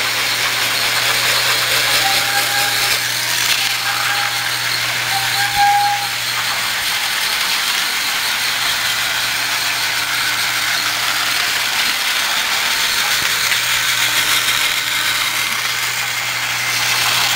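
Battery-operated TrackMaster toy train's small electric motor and plastic gearbox running steadily as the engine rolls along plastic track.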